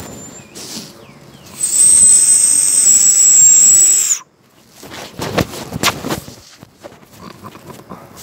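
One long, high, steady whistled call lasting about two and a half seconds, starting about a second and a half in and stopping abruptly, part of a call-and-answer exchange with marmosets. A couple of short rustles follow.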